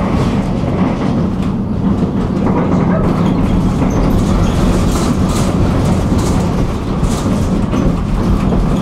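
Tram running along the track: a steady low rumble of wheels on rails, with a few light clicks.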